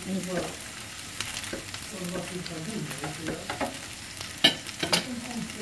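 Rice noodles and bean sprouts sizzling as they are stir-fried and tossed in a nonstick frying pan, with scraping and light ticks from the utensils. About four and a half seconds in come two sharp knocks of the utensils against the pan, half a second apart.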